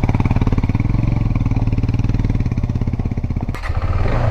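Motorcycle engine running at a steady idle, a rapid even putter; about three and a half seconds in the sound briefly dips and then picks up again.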